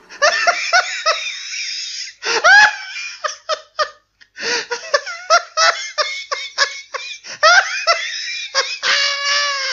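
Loud, hearty, high-pitched laughter in long runs of quick 'ha-ha' bursts, with a short break about four seconds in and a drawn-out high note near the end.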